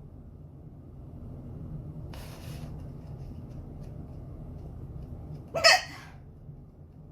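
A woman hiccups once, loudly, about five and a half seconds in: a short voiced 'hic' that jumps up in pitch. A soft breath-like hiss comes a couple of seconds earlier, over a steady low hum.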